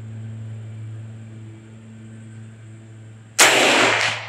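A single shot from a BinTac MCAR .457-calibre regulated PCP air rifle with a muzzle brake, firing a 337-grain slug: one sudden, loud crack about three seconds in that rings out for most of a second. A steady low hum runs underneath.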